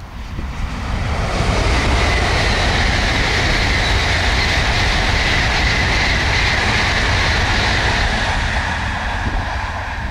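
Tokaido Shinkansen N700-series high-speed train passing at speed: a loud rushing noise that swells in about a second in, holds steady for several seconds as the train goes by, and eases off near the end.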